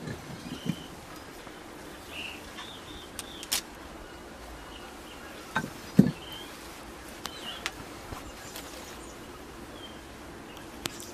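Small birds chirping now and then, with a few sharp knocks and clicks (the loudest about six seconds in) over a steady background hiss.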